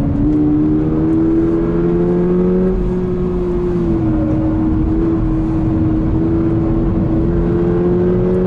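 Toyota GR86's 2.4-litre flat-four boxer engine, heard inside the cabin while it pulls on track. The engine note climbs slowly, dips briefly about four seconds in, then climbs again, over steady road and tyre noise.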